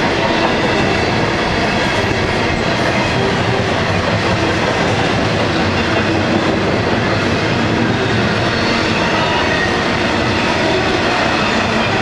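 Double-stack intermodal train's well cars rolling past at speed: a steady, loud rumble and clatter of steel wheels on the rails.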